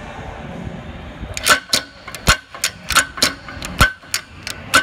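Sharp metallic clicks, roughly three a second and not quite even, each with a brief ring, starting about a second and a half in.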